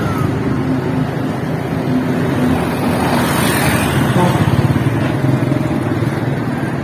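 Street traffic: a motor vehicle engine running steadily, with another vehicle passing about three seconds in.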